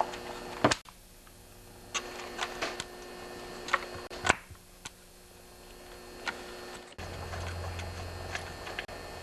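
Scattered light clicks and knocks of hands working plastic and metal parts on a Stihl 028AV chainsaw, taking off the air filter cover to get at the spark plug. A steady low hum sits underneath and jumps in level about two-thirds of the way through.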